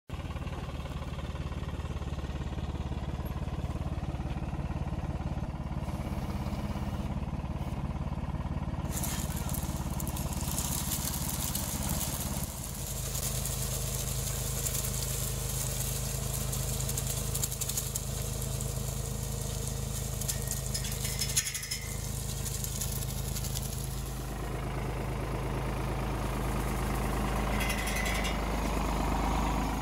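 A New Holland compact orchard tractor's diesel engine runs steadily while its towed branch sweeper's rotary brush spins, sweeping pruned twigs and soil. From about 9 seconds in, a noisy swish from the brush sits over the engine, and the engine note rises near the end.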